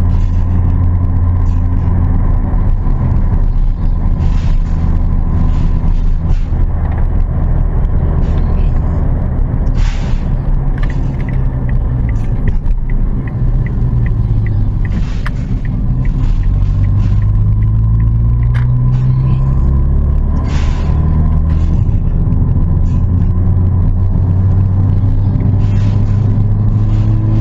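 Car engine running under way, its low drone rising and falling slowly in pitch with speed. Occasional short knocks, and a brief run of faint quick ticks about halfway through.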